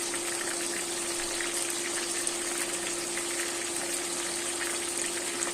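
Chicken pieces frying in hot oil: a steady sizzle dotted with many small crackles and pops, over a steady low hum.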